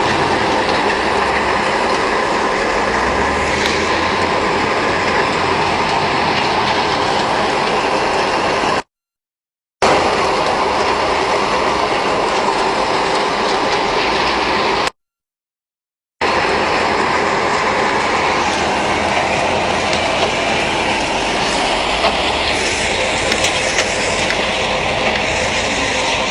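Sand screening and washing plant running: a steady, loud rattling machine noise, with sand and stones churning through the screen and the washers. It cuts out abruptly twice for about a second.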